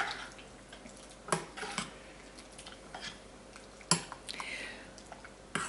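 A metal utensil clinking against a stainless steel pot in a few sharp, separate knocks, the first the loudest, with a brief soft scrape a little after the middle.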